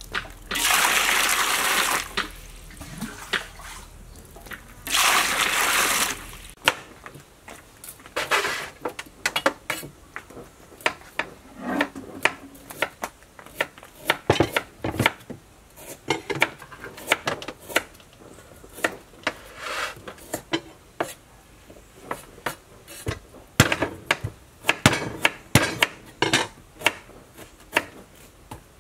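Water rushing twice, each for about a second and a half, as snakehead fish are rinsed in a metal basin. From about six seconds in, a kitchen knife chops on a cutting board in quick, uneven knocks.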